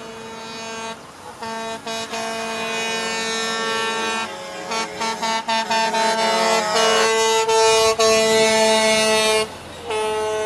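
Semi-truck air horns on passing NASCAR haulers sounding a chord of several pitches: held blasts at first, then a run of quick short toots, then a long steady blast that cuts off shortly before the end, with the horn starting again right after.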